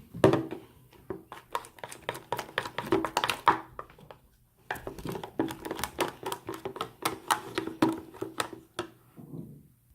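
Slime mixture being stirred in a bowl after water is added: rapid clicks and scrapes, in two bouts with a short pause about four seconds in.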